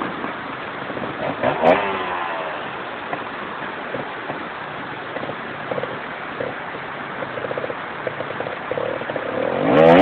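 Sherco trials motorcycle engine running at low revs over rough ground, with short throttle blips and two brief rises and falls in revs, about a second and a half in and again near the end.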